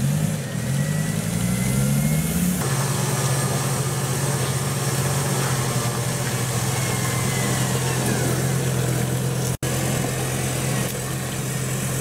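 Off-road jeep's engine running under load while the vehicle is stuck in mud, the revs rising in the first two seconds or so, then holding steady.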